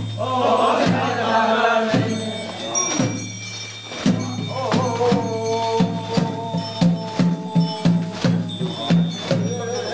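Group of men chanting in unison with long held notes, over a regular beat of strokes about once a second, as part of a traditional dance.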